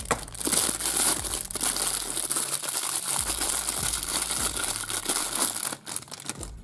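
Thin clear plastic bag crinkling continuously as hands work it open and slide a small figurine out, the crinkling dying away near the end.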